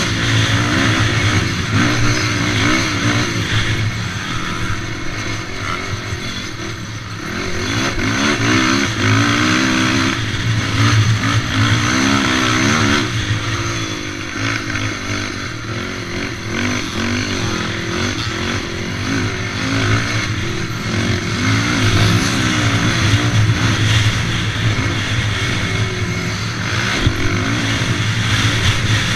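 Race quad's engine heard onboard, its pitch rising and falling over and over as the throttle is opened and closed around a dirt motocross track.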